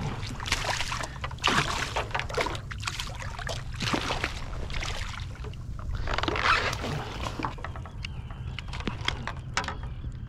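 A hooked striped bass thrashing and splashing at the water's surface beside a kayak, in irregular bursts, with a few sharper knocks later as the fish is brought to the boat, over a steady low rumble.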